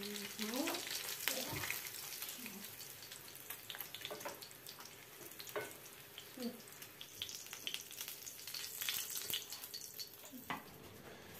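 Lavash rolls stuffed with cheese and cottage cheese sizzling as they fry in vegetable oil in a frying pan, a steady hiss. Now and then the metal forks that are turning the rolls click against them and the pan.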